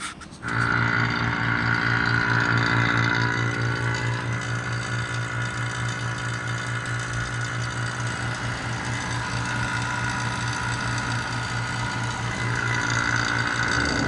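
Electric A/C vacuum pump switching on about half a second in and running with a steady, slightly pulsing hum while it pulls a vacuum on the car's air-conditioning system.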